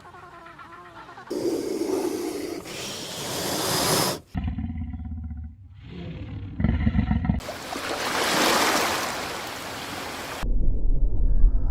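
A string of wild-animal calls in several short clips, switching abruptly from one to the next about every three seconds: a pitched call first, then harsher noisy and low pulsing sounds, and a long hiss-like rush near the end.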